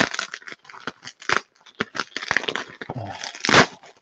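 Plastic bubble wrap crinkling and crackling as it is handled and pulled off a parcel, with a louder crunch about three and a half seconds in.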